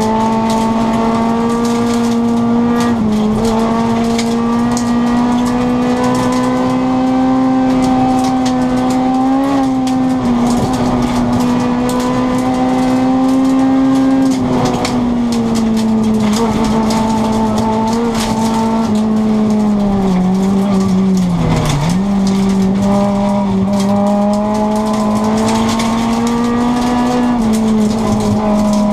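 Rally car engine heard from inside the cabin, held at high revs at full throttle on a gravel stage, with brief dips in pitch at gear changes or lifts and a deeper drop about two-thirds of the way through before it pulls back up. Gravel crackles and rattles under the car throughout.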